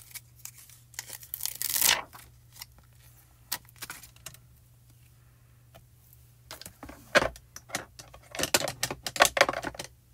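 Clear photopolymer stamps being peeled off their plastic carrier sheet and handled: crackly peeling and rustling of plastic, once about a second in and again in the last few seconds.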